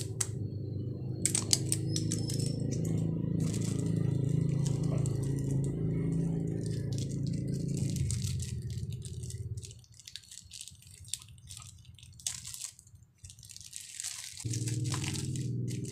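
Plastic wrapping on a remote control crinkling and crackling as it is handled, with small clicks of batteries and packaging. Under it a steady low hum drops out about ten seconds in and comes back near the end.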